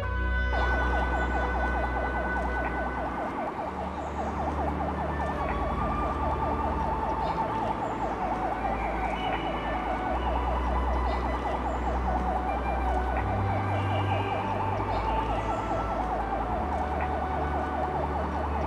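Background music: a fast-warbling synthesizer tone held over low bass notes that change every few seconds.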